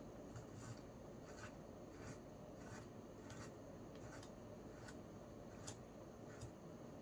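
Faint, irregular light clicks and rubbing of small steel parts of a Sturmey-Archer S3B three-speed hub being fitted together by hand, about a dozen clicks in all.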